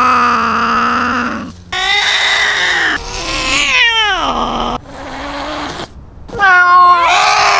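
Cats yowling at close range: long drawn-out calls that slide up and down in pitch, in several short clips cut one after another. These are the drawn-out threat calls of cats facing off over territory.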